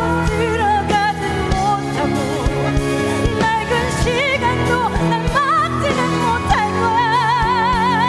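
Musical-theatre ballad recording: orchestral accompaniment with held chords under a high melody line sung or played with vibrato, one long wavering note near the end.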